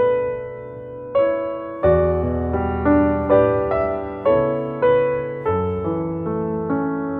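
Piano music: a slow, gentle tune of struck notes and chords, a new one about every half second, each ringing and fading.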